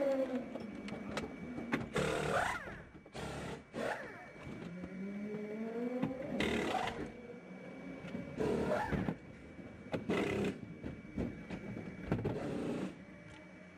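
Pit crew's pneumatic wheel guns whirring in about six short bursts a couple of seconds apart during a tyre change on the Porsche 919 Hybrid, some bursts rising in pitch as the gun spins up. A steady high whine sounds underneath.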